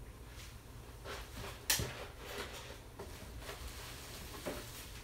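Scattered light knocks and clicks, with one sharper click a little under two seconds in, over a low steady hum.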